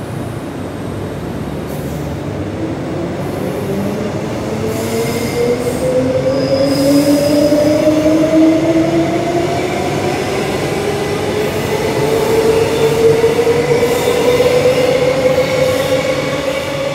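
Queensland Rail electric train accelerating: its traction motors whine in several tones that climb steadily in pitch, over the running noise of wheels on rails.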